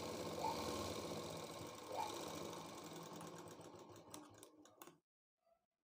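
Sewing machine stitching lace trim onto fabric, running steadily, then slowing and stopping about four seconds in, with a couple of faint clicks after.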